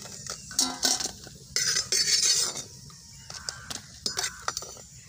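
Perforated steel skimmer knocking and scraping against a clay pot and a steel plate as fried dried red chillies are scooped out of the oil: a series of short clinks and scrapes, busiest in the first half and again a few knocks near the end.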